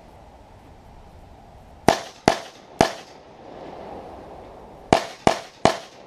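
Six handgun shots in two quick strings of three, the strings about three seconds apart, each shot followed by a short echo.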